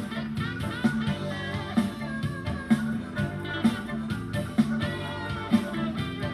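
Music with a steady beat, a strong accent about once a second, and melody lines over it.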